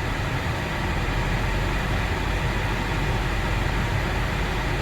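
Engine of a 2011 Honda CR-V running steadily with the air conditioning on while the AC system is being charged: a steady low hum with an even hiss over it.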